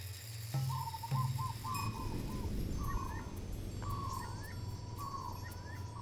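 Repeated short whistled chirps, each dropping slightly in pitch: a quick run of several, then about one a second, over a steady low hum.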